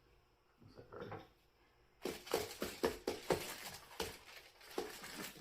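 Paint being mixed: a tool clicks and taps quickly and unevenly against a hard dish or palette, starting about two seconds in after a few faint knocks.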